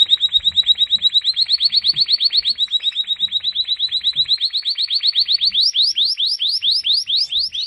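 European goldfinch singing a long, rapid trill of high repeated notes, about ten a second. About five and a half seconds in, the notes slow to four or five a second and each sweeps steeply upward.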